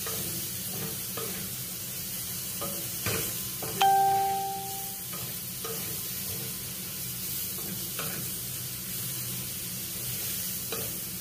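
Sliced bitter gourd sizzling steadily in a frying pan on the gas stove, with short scrapes and taps of the spatula as it is stirred. About four seconds in, a single sharp clink rings on for about a second.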